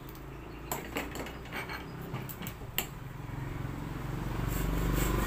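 A few sharp metal clicks and clinks in the first three seconds, then near the end a saw starts rasping back and forth through soft aluminum.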